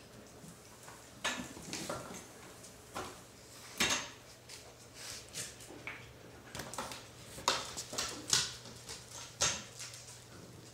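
Alaskan Klee Kai puppies play-wrestling: scuffling on fleece bedding with about ten short, irregular yips and scuffs, loudest around the middle and latter half.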